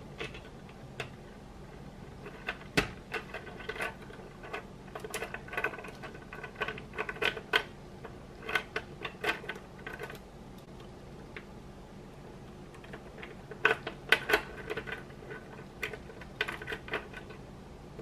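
Small plastic LEGO Technic pieces clicking and clattering as they are handled and pressed together: irregular runs of sharp little clicks with quiet gaps between, and a longer lull about ten seconds in.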